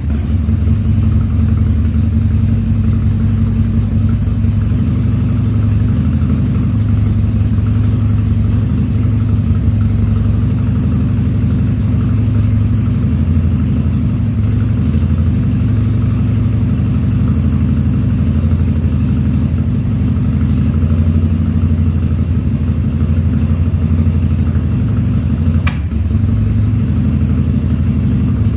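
Harley-Davidson Sportster 1200's air-cooled Evolution V-twin idling steadily with no air cleaner fitted, its idle wavering slightly, at its first start after a carburettor rebuild. A brief click near the end.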